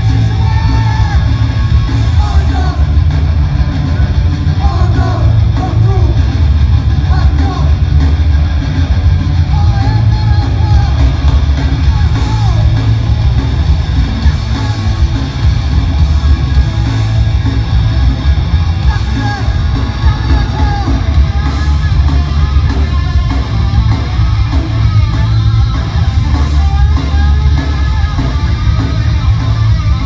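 Live Oi! punk band playing loud: distorted guitars, heavy bass and drums, with shouted singing over the top. Heard from within the crowd, the low end booms and dominates.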